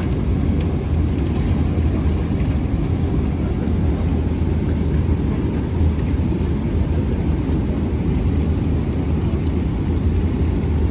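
Steady low rumble of an airliner cabin in flight, engine and airflow noise heard from a passenger seat as the plane descends toward landing.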